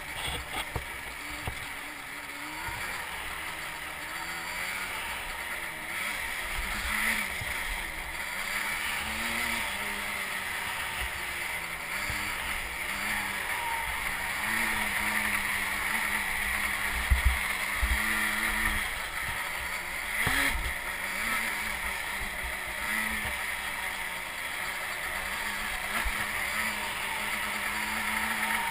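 ATV engine running under way on a dirt track, its pitch rising and falling again and again with the throttle. A couple of sharp thumps stand out, the loudest about halfway through.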